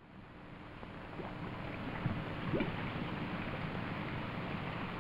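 A steady wash of water lapping, with small splashes, fading in from silence at the start.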